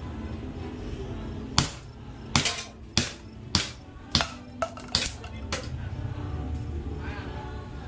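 Airsoft target shooting: about nine sharp cracks in an irregular string, from a gas-powered airsoft gun firing and BBs striking plastic bottle targets.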